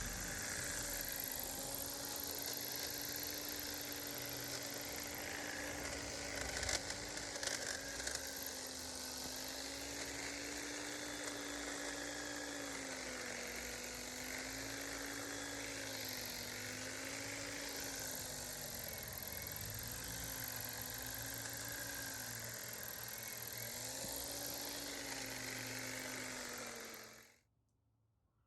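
EGO 60-volt battery hedge trimmer attachment on its multitool powerhead, running steadily with a whir. Its pitch sags and recovers again and again as the blades bite into branches, with a few sharp snaps of cut stems about a quarter of the way in. It cuts off shortly before the end.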